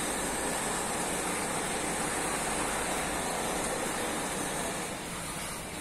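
Steady rushing hiss of an aquarium's filter and water circulation, with a thin high steady whine over it.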